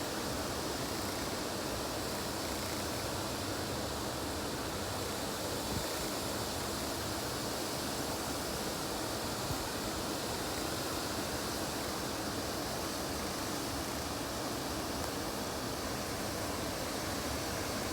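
Steady, even hiss of water outdoors, with no single sound standing out.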